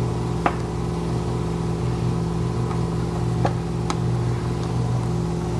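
A few sharp plastic clicks as push-pin fasteners are pried out of a car's front air dam with a trim tool: one about half a second in and two more around three and a half and four seconds in. Under them runs a steady low hum.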